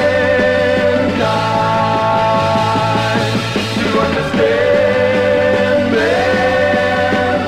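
1960s rock song recording: sustained chords that shift a few times over a steady beat.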